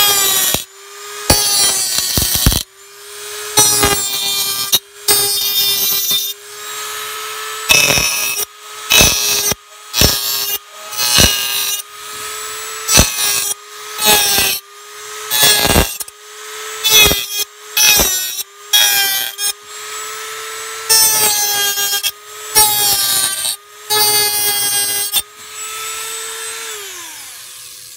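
Handheld rotary tool running with a steady whine, broken by a long series of short, harsh grinding bursts as its cutoff disc cuts slits into the edge of the cockpit opening in an aluminum bottle. The motor winds down near the end.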